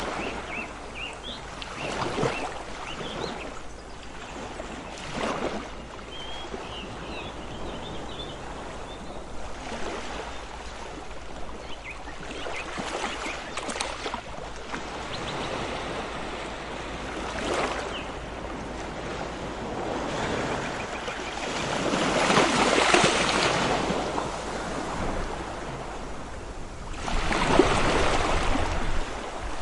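Ocean waves washing ashore, a steady surf that surges and recedes every few seconds, with the largest swells coming in near the end.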